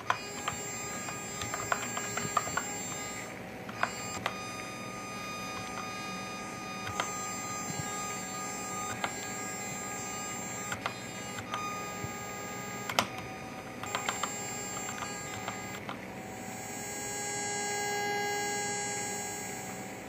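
Mechanical keyboard keys pressed one at a time, giving scattered single clacks at an uneven pace. Behind them runs a steady electronic tone that swells near the end.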